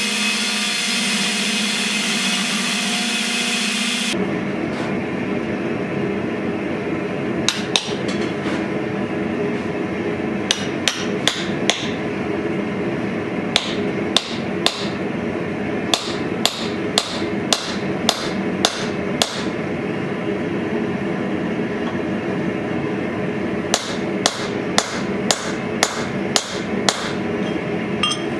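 Belt grinder grinding steel for the first four seconds, then hammer blows on hot steel on an anvil, forging a sword's cross-guard. The strikes come in several short runs of a few to about ten blows, two to three a second, over a steady background hum.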